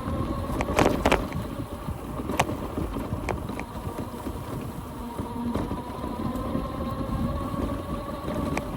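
UBCO electric motorbike on the move: a steady whine from its electric hub motors over a low rumble of tyres and wind, with a few sharp knocks and rattles about a second in.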